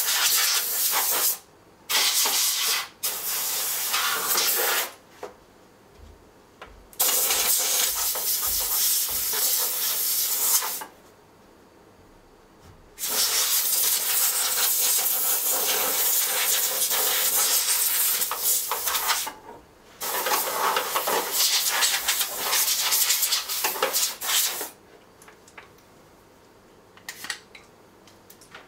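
Compressed-air blow gun hissing in repeated blasts of one to several seconds, with short pauses between, as dust is blown out of an opened UPS's internals. Near the end the blasts stop and only a few light clicks are left.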